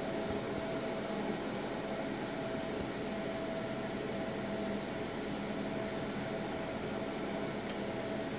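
Laser marking machine running: a steady hum of fan noise with a constant mid-pitched tone.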